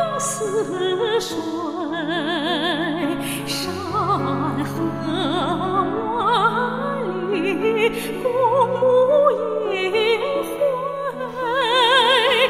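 A song sung in an operatic style with wide vibrato, lyrics about the round moon and moonlight, over sustained instrumental accompaniment.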